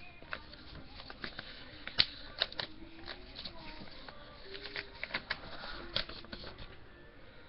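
A sheet of paper being folded and creased by hand: irregular soft crinkles and taps, with one sharper click about two seconds in.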